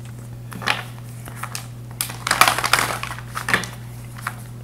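Tarot cards being shuffled by hand: a single tap about a second in, then a burst of rapid card-on-card riffling and rustle around two seconds in, and another tap near the end.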